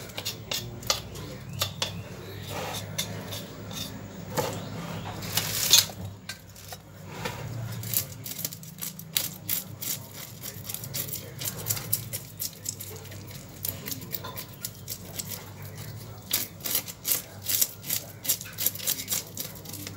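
Knife scraping the scales off a small tilapia on a wooden chopping block: a run of short, quick scrapes, about three a second near the end, with one louder stroke about six seconds in.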